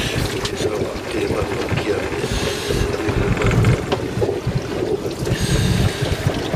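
Steady low rumble of a small fishing boat at sea, with wind on the microphone. Water hisses against the hull twice, about two seconds in and again near the end.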